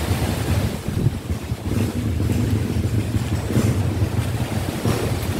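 Wind buffeting the microphone with a heavy, fluctuating low rumble, over the wash of the sea.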